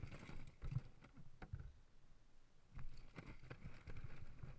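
Water lapping and knocking against an inflatable river tube at the waterline, heard as irregular low thumps with small splashes and clicks.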